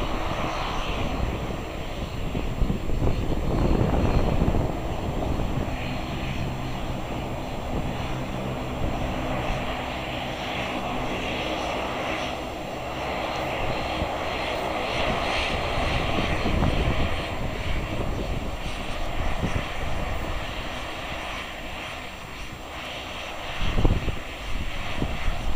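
Dash 8-Q400's twin turboprop engines and propellers running at taxi power as the airliner taxis and lines up for take-off: a steady propeller drone with a low hum of steady tones, getting louder near the end.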